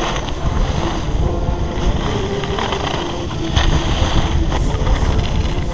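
Wind rushing over an action-camera microphone while skiing downhill, with skis hissing and scraping over packed snow; the scrapes swell briefly a few times as the skier turns.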